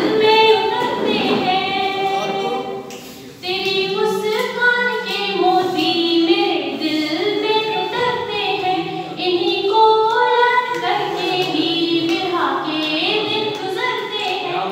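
A woman's solo voice singing a poem in a melodic, drawn-out recital style, in phrases of held notes with a short pause about three seconds in.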